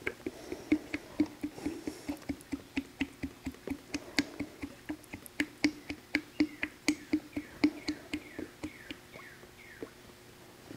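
Cutting-oil concentrate glugging out of the spout of a tipped 5-gallon pail into a plastic cup, about four glugs a second, weakening and stopping near the end.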